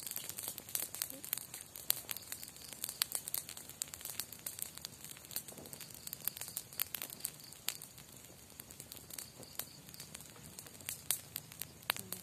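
Campfire crackling, with many irregular sharp pops and snaps over a faint hiss.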